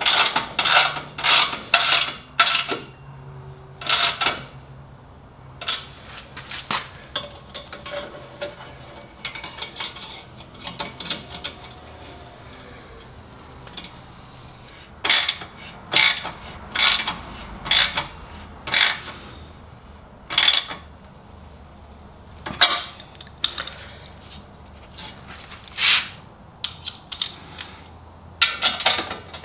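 Socket ratchet clicking in short bursts of quick strokes, tightening the exhaust muffler's mounting bolts, with metal clinks between the bursts.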